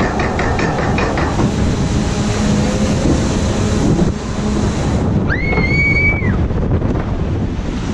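Log flume boat on its lift incline, with rapid ratchet clicking about five times a second that stops about a second in, then a steady rush of wind and water as the boat tips over and runs down the chute. About five seconds in comes a single high squeal lasting about a second: it rises, holds, then drops off.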